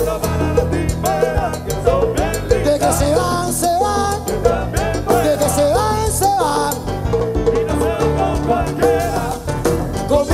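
Live Cuban timba band playing salsa: congas, drum kit, bass and keyboard under vocalists singing, with a steady dance beat.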